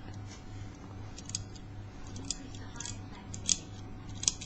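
Lever-lock pick scraping and clicking against the levers inside a small brass four-lever cabinet lock: a handful of light, sharp metallic ticks spread irregularly. The pick is catching on the levers, which the picker thinks means the pick is too big for the lock.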